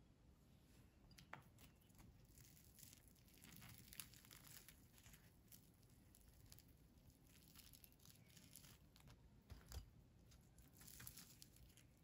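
Faint crackling and tearing of a crisp, flaky croffle as it is pulled apart by hand, with scattered crackles and a few sharper snaps of the crust.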